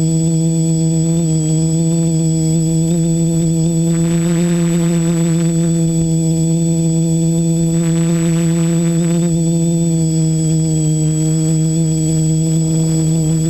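Multirotor drone's electric motors and propellers giving a steady whine at nearly constant pitch as it flies, with brief rushes of hiss about four and eight seconds in.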